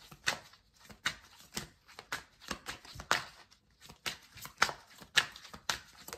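A tarot deck being shuffled by hand: a quick run of card rustles and slaps, about three a second.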